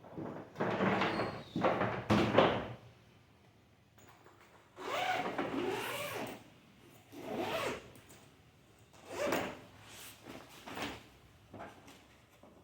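Zipper on a hard-shell polycarbonate trolley suitcase being pulled along in several separate rasping strokes.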